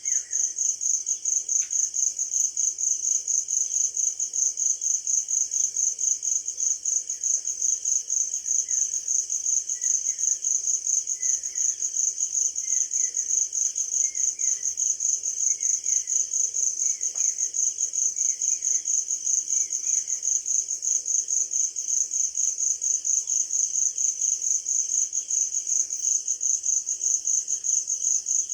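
A cricket chirping: a high, steady trill of rapid, even pulses several times a second. Faint short falling bird chirps come and go behind it in the middle.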